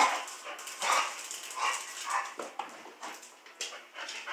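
A dog vocalizing softly in a string of short calls, one every half second or so.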